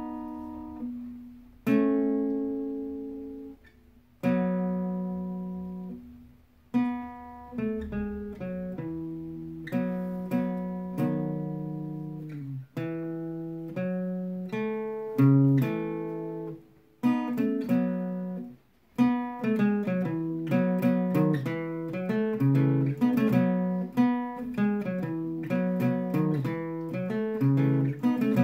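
Guitar strumming a rhythm part chord by chord, each chord left to ring. About two-thirds of the way through the strokes come faster and closer together.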